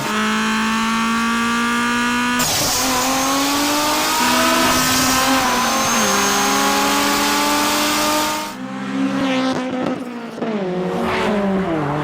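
Race car engine sound effect revving up through the gears: the pitch climbs, then drops back at each shift, several times over.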